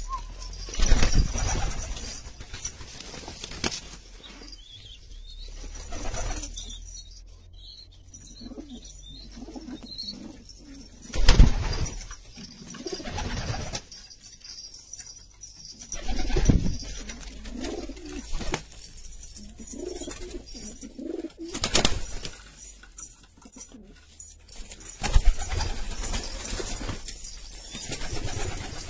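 A loft flock of domestic pigeons cooing, with rolling coos coming one after another, broken every few seconds by short loud bursts of sound.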